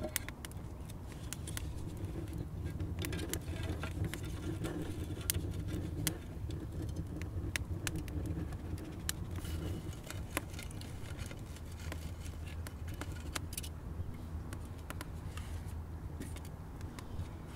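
Wood fire crackling in a clay rocket stove's firebox, with scattered sharp clicks over a low steady rumble. Wooden stick tongs knock and scrape against the clay as a squash is pushed into the fire.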